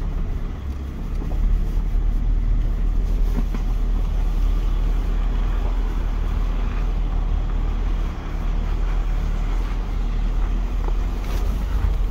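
Pickup truck's engine and tyres droning steadily, heard from inside the cab while driving on a snow-covered road, with two brief dips in level.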